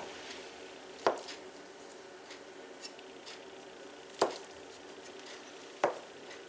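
A stainless steel bench scraper chopping hard-boiled eggs against a cutting board: a few sharp knocks of the blade hitting the board, about four in all, with faint soft taps between.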